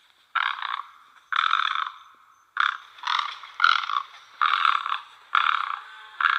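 Great egret giving a series of harsh, rasping calls, seven in quick succession, each about half a second long and roughly a second apart.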